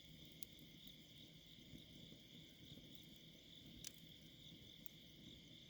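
Faint, steady chorus of crickets and other night insects, with a few sharp pops from a crackling campfire, the loudest about four seconds in.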